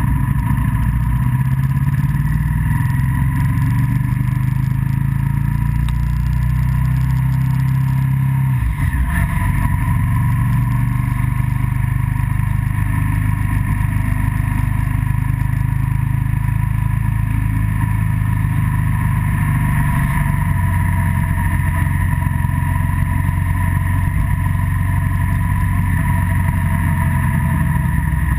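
Engine and road noise of a moving vehicle, heard from the vehicle itself. The engine note climbs steadily, drops with a gear change about nine seconds in, then holds at a steady cruise.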